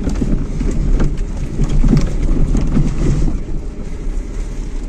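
A car driving slowly over a rocky, gravelly riverbed, heard from inside the cabin. The engine and tyres rumble under scattered knocks and crackles from the stones, and it gets quieter near the end.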